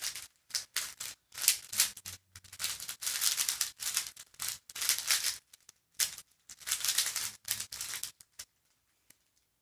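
Speed cube being turned rapidly by hand: runs of fast plastic clicking and clacking as the layers snap round, stopping near the end.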